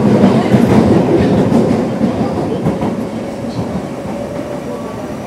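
Running noise of an Osaka Metro 23 series subway train with Mitsubishi GTO-VVVF traction equipment, in an underground tunnel: wheels clacking over rail joints over a dense rumble, with a faint steady tone beneath. The noise grows quieter through the second half.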